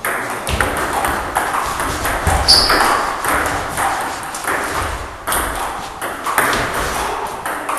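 Table tennis rally: the celluloid ball clicking back and forth off the rubber bats and the table top, many sharp clicks in quick succession, with further ball clicks from play at the next table.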